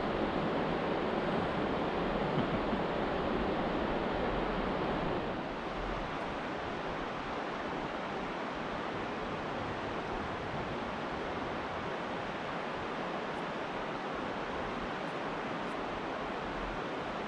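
Steady rush of flowing river water running through shoals, dropping a little in level about five seconds in.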